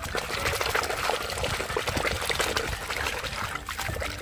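Muddy water splashing and sloshing in a plastic basin as a hand swishes and scrubs a plastic toy airplane under the surface: a steady run of small, quick splashes.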